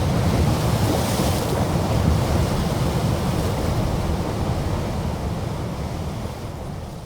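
Wind and surf rumbling inside a sea cave, heaviest in the low end, where the wind sets up the cave's natural low resonance. A brighter rush of hiss swells about a second in, and the rumble fades away toward the end.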